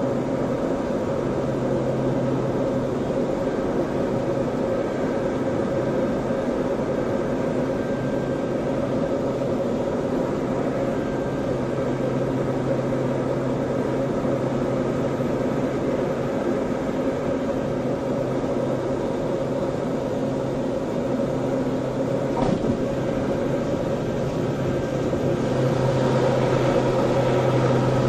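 Cabin noise of a turboprop airliner on final approach, a steady engine and propeller drone heard beside the engine nacelle. Near the end a brief knock comes, then the sound grows louder and rougher as the plane is on the runway.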